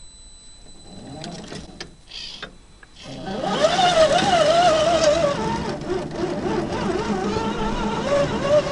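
Scale RC crawler's electric motor and geared drivetrain whining under load as the truck climbs a steep dirt bank. A few light clicks at first, then about three seconds in the whine comes in loud, its pitch wavering up and down with the throttle.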